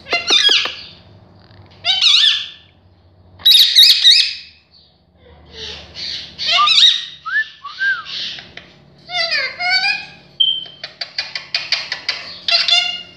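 Indian ringneck parakeet talking in a high, squeaky mimicked voice: several short phrases with pauses between, full of sliding whistle-like pitch. Near the end comes a quick run of sharp clicks.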